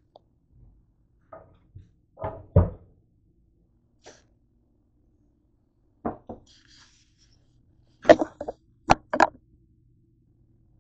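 Scattered knocks and thuds of things being handled and set down on a hard kitchen countertop, with the camera itself moved and put down. The loudest pair comes about two and a half seconds in, and a quick cluster of four knocks comes near the end.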